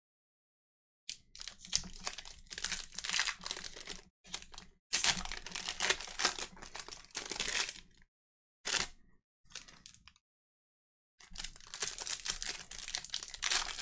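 Foil trading-card pack wrappers being torn open and crinkled by hand, in several bursts of crackling with short breaks between.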